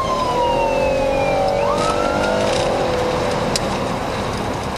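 Police car siren wailing, its pitch sliding slowly down and then sweeping back up a little under two seconds in, over the car's engine and road noise.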